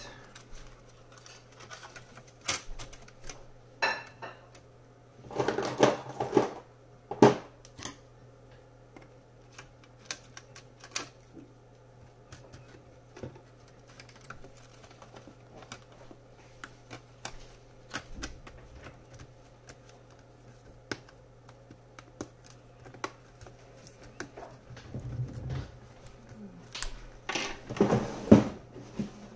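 Scattered clicks, taps and light plastic-and-metal clatter from hands and tweezers working a replacement keyboard into an HP Envy x360 laptop's top case and handling its ribbon cables. Louder clusters of handling come about five to seven seconds in and again near the end.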